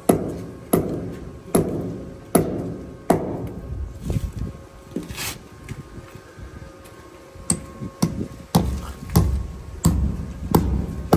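Repeated hammer blows, evenly paced at a little more than one a second at first, then more irregular, each blow ringing briefly.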